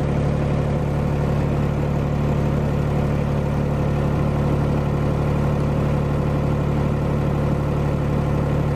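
Tractor engine idling steadily, an even low hum.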